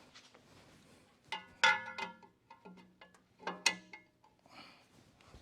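Metal hand tools clinking and ringing against metal engine parts in two short clusters, about a second and a half in and again near the middle.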